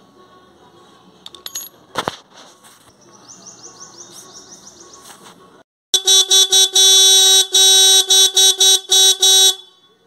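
Motorcycle disc horn sounding from about six seconds in: a loud, steady pitched tone in a quick string of short beeps and longer blasts for about three and a half seconds. The horn has just had its adjusting screw reset.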